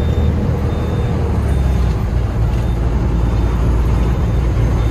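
Heavy truck's diesel engine droning steadily with road noise, heard from inside the cab while driving.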